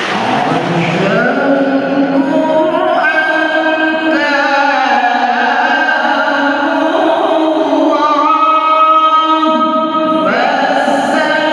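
A young girl reciting the Qur'an in the melodic tilawah style, holding long notes that step up and down in pitch with wavering ornaments, and starting a new phrase near the end.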